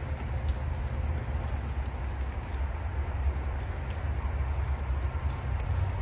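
Steady wind rumble on the microphone over a light, continuous patter of falling rain or wet snow, with scattered faint ticks.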